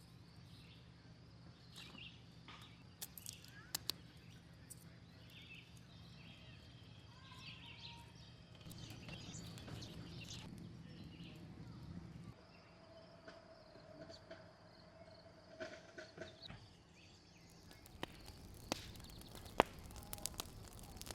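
Faint outdoor ambience of birds chirping, with scattered sharp clicks and a low steady hum in the first half.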